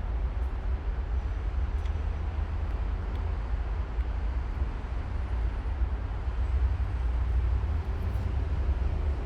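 Wind buffeting an outdoor microphone: a steady, fluttering low rumble with a light hiss above it.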